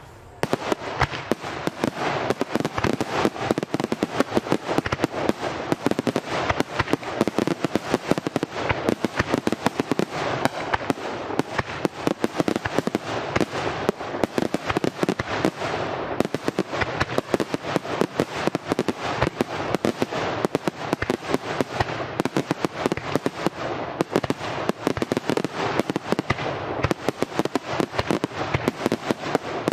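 Aerial fireworks display: a dense, unbroken barrage of shell bursts and crackling reports, many per second, starting about half a second in.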